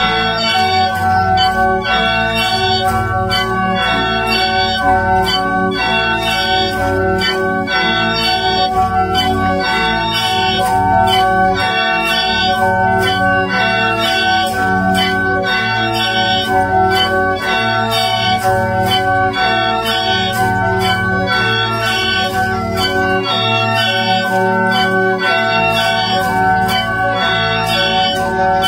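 Ensemble of Mro plung, gourd mouth organs with long bamboo pipes, playing sustained, overlapping reedy chords with a regular pulse to accompany the dance.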